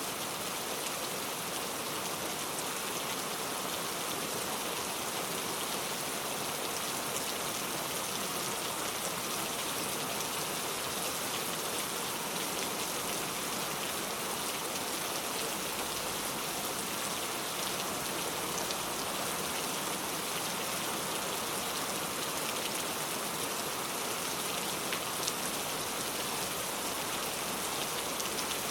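Heavy rain falling steadily, a dense even hiss with fine patter of drops striking surfaces.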